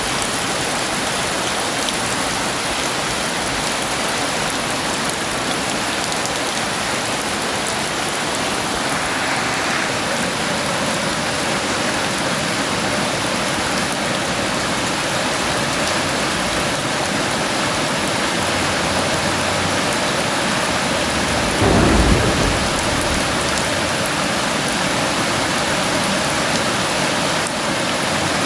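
Heavy rain falling steadily, with one short low rumble of thunder about three-quarters of the way through.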